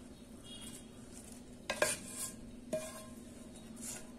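Metal pan and spoon clinking and scraping against a stainless steel mixer-grinder jar as sautéed mint and coriander leaves are tipped in: a couple of sharp clinks with a short ring about two seconds in and another near three seconds.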